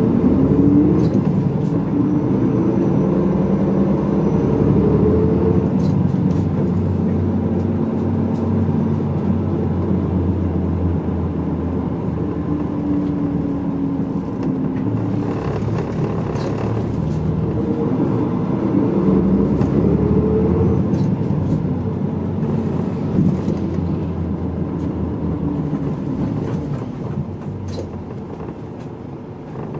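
Medium-size route bus running, heard from inside the passenger cabin: engine and drivetrain with road noise, its pitch rising several times as the bus pulls away and picks up speed, then quieter near the end.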